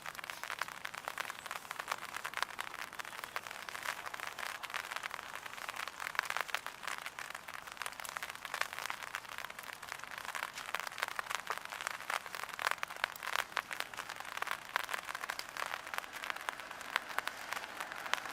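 Light rain, many small drops ticking irregularly and densely, many a second, with no let-up.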